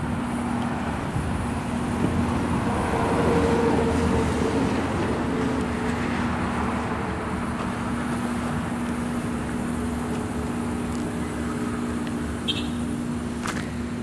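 Motor vehicle traffic running nearby, a steady rumble with a low hum that swells a few seconds in and then eases.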